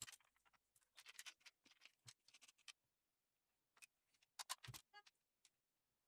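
Faint handling noises on a workbench: small clicks, rustles and taps as parts and tools are picked up and set down, with a louder knock about four and a half seconds in.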